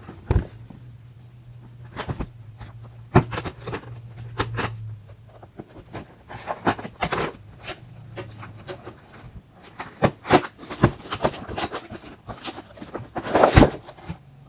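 A cardboard kitchen-scale box and its plastic packaging being opened and handled by hand: irregular scrapes, taps and crinkling rustles, with the loudest cluster near the end.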